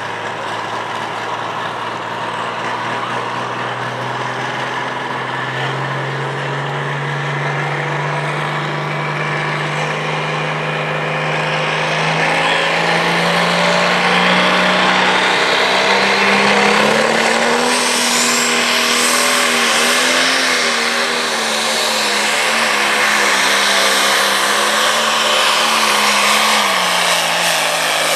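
Super Stock diesel pulling tractor's engine revving at the sled, its pitch climbing slowly for many seconds, with a high whine rising alongside it. The engine note then wavers as the tractor pulls under load, and drops near the end.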